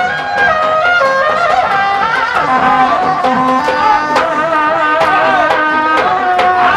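Sundanese kendang pencak music accompanying a kuda renggong performance: a reedy tarompet melody wavering and ornamented over steady kendang hand-drum strokes.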